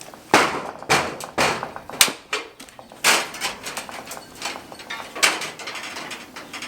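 A string of about six sharp, irregular clunks and knocks, wood and metal, as a jack pushing a 2x4 against the top plate shoves a damaged shed wall back into place.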